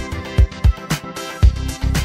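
Upbeat electronic dance music with a steady kick-drum beat, about two beats a second.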